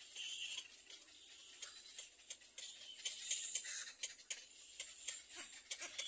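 Little egret nestlings in the nest making quick, irregular ticking and clicking calls, with a few short hissy bursts of chatter.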